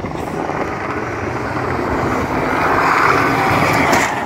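Banger racing car's engine running hard as it drives past close by, growing louder to a peak near the end.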